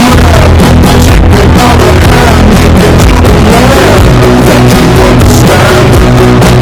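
Very loud rock music with a singing voice, played at a near-constant, maxed-out level.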